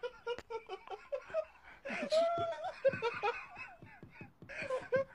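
A person laughing in many quick, short giggles, with one longer drawn-out note about two seconds in.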